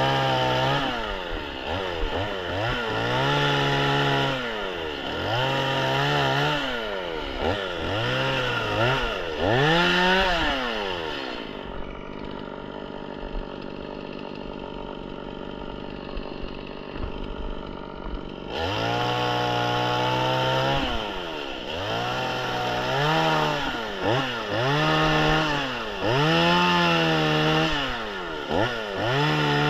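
Stihl MS 180 two-stroke chainsaw revved up and dropped back over and over, about once every second or two. Midway it falls to a steady idle for about seven seconds, then the revving starts again.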